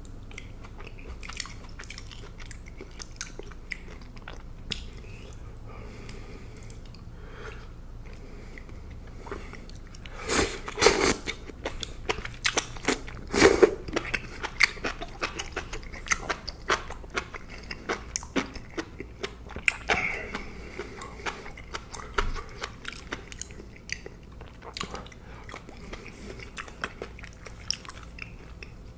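Close-miked chewing and biting of food: wet mouth clicks and crunches, sparse at first, then a dense run of loud bites and chews from about ten seconds in, thinning to scattered clicks toward the end.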